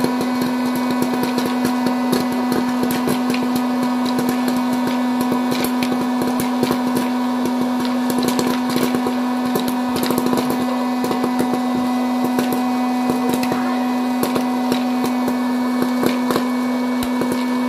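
Hot-air popcorn popper running: a steady hum from its fan motor, with kernels popping in many sharp, irregular clicks late in the batch.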